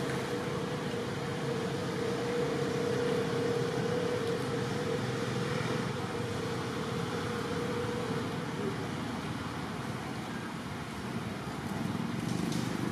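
Steady rushing of muddy floodwater flowing over and around stones, with a steady hum over it that fades out about two-thirds of the way through.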